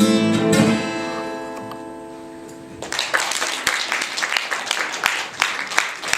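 The song's final chord on guitar, with the last sung note, rings out and fades away; about three seconds in, the audience breaks into applause.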